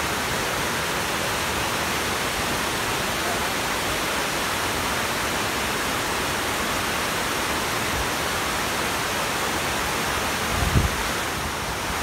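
A large waterfall rushing steadily as water pours over a cliff and across rock ledges. There is a brief low thump near the end.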